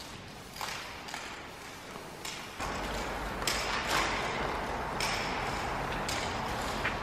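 Aerosol spray paint can hissing against a wall in a series of bursts, fainter at first, then close and almost continuous from about two and a half seconds in, with a low rumble beneath.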